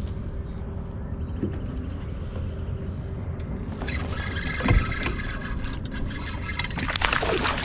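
Steady low rumble around a kayak, with a sharp knock a little past halfway. Near the end come louder splashes as a hooked largemouth bass is brought to the kayak.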